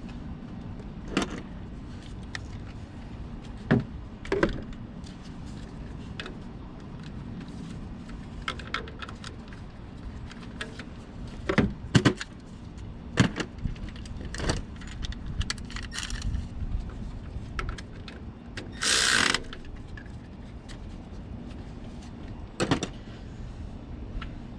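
Scattered metallic clinks and knocks of hand tools and parts being handled during reassembly in a car's engine bay, with one brief harsh rasp about three-quarters of the way through.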